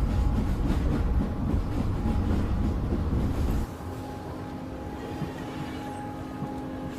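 Loud low rumbling noise that cuts off suddenly about three and a half seconds in, followed by quieter steady held tones as background music begins.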